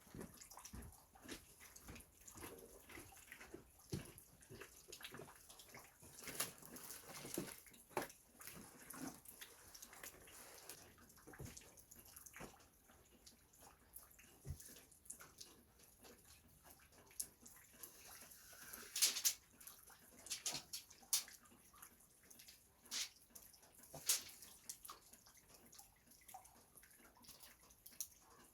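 Faint, scattered knocks, clicks and rustles of work handling, with a brief cluster of sharper clicks about two-thirds of the way through.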